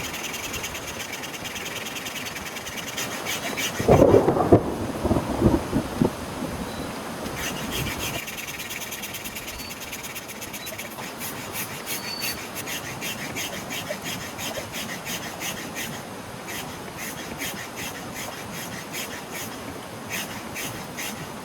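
Steady heavy rain with a dense patter of drops, and a loud burst of thunder about four seconds in that lasts about two seconds.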